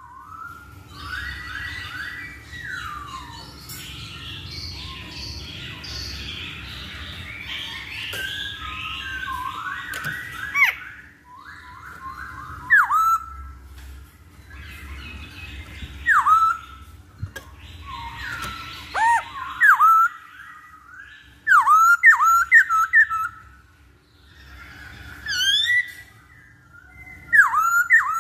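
Black-throated laughingthrush (Hong Kong poksay) singing: loud, clear whistled phrases of swooping notes, with a denser run of softer chattering through roughly the first ten seconds and thin, very high chirps now and then.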